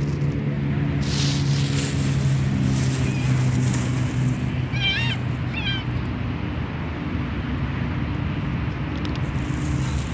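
A hungry cat meowing twice in quick succession about halfway through, two short calls. A steady low hum runs underneath.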